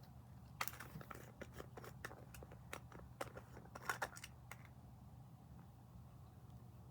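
A quick irregular run of small clicks and crackles from something hard being handled, lasting about four seconds and stopping well before the end, over a faint steady hum.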